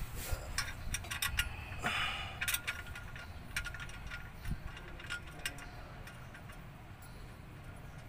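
Light metallic clicks, rattles and a short scrape as a clutch pressure plate and disc are shifted by hand against the flywheel, busiest in the first three seconds and quieter after.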